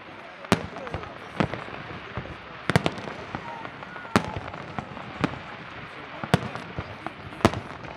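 Fireworks display: sharp bangs of aerial shells bursting about once a second, two of them in a quick pair, over a steady background hubbub.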